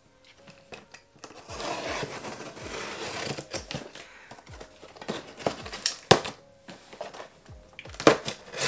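Cardboard shipping box being opened by hand: packing tape torn open with a rasping stretch of about two seconds, then the flaps pulled and handled with sharp knocks and rustles.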